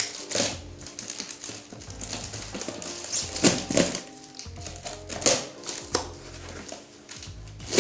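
Packing tape being slit and ripped off a cardboard box: several sharp tearing and scraping strokes, over background music.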